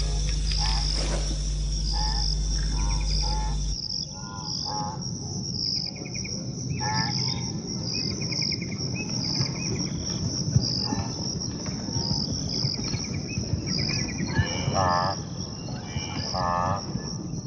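Savanna ambience: insects chirping steadily in quick pulses, with a wildebeest herd giving repeated short nasal grunting calls. A low steady hum stops about four seconds in.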